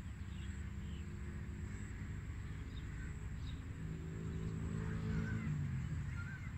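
Outdoor field ambience: birds calling, with short chirps scattered through, over a steady low rumble. A low droning hum swells through the second half and drops in pitch near the end.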